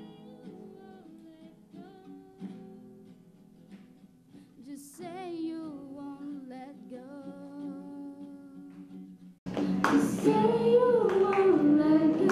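Acoustic guitar strummed while women sing a song, fairly softly at first. About nine seconds in the sound abruptly gets much louder, with a long wavering sung note held to the end.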